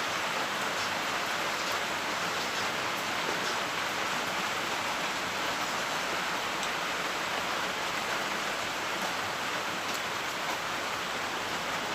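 Steady, even rushing noise with faint scattered crackles.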